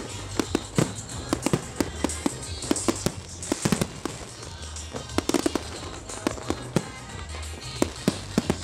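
Aerial firework shells bursting overhead in a professional display: a rapid, irregular string of sharp bangs and crackles, several a second.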